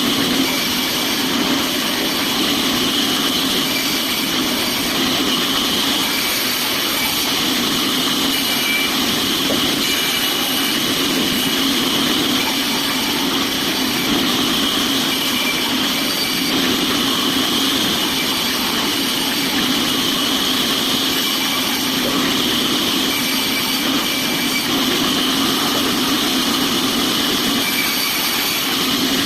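Sawmill machinery running steadily with a loud, even mechanical noise.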